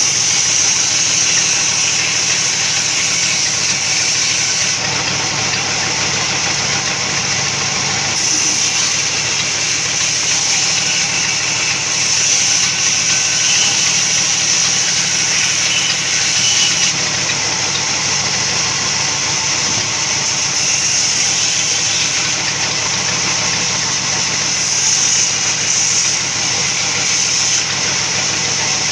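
Sawmill machinery running steadily: a continuous mechanical drone with a bright high hiss on top, no starts or stops.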